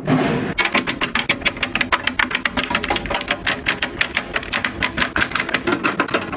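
A rapid run of light clicks and taps, about eight to ten a second, starting about half a second in and going on steadily.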